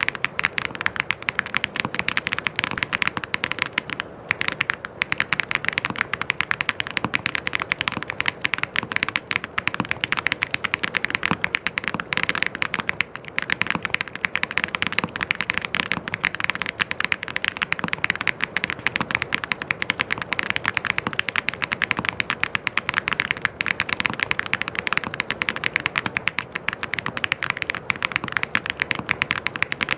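Mechanical keyboard being typed on fast and without letup, a dense stream of key clicks.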